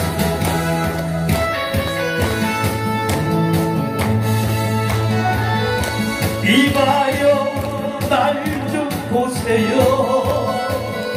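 Karaoke backing track playing the instrumental break between verses, with steady bass and chords. From about six and a half seconds in, a lead melody line that bends in pitch joins over it.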